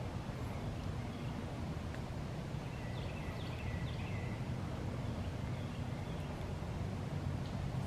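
Steady low outdoor rumble with a few short bird chirps about three seconds in.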